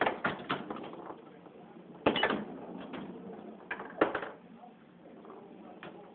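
Foosball table in play: sharp clacks and knocks of the ball being struck by the rod figures and hitting the table, coming in quick clusters about every two seconds.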